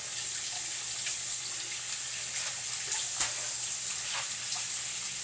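Corned beef frying in a hot pan: a steady sizzle with occasional sharp pops and crackles.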